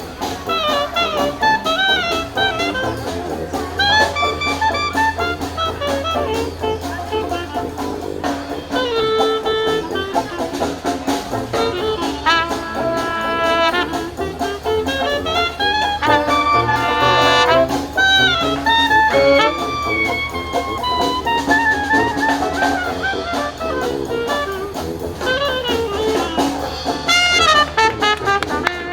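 Live New Orleans-style jazz band playing an up-tempo number: trumpet, trombone and saxophone trading melodic lines over drums.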